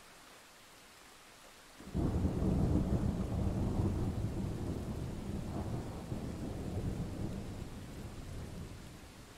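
Thunder breaks suddenly about two seconds in and rolls on as a deep rumble that slowly fades over the next several seconds, over a faint steady hiss of rain.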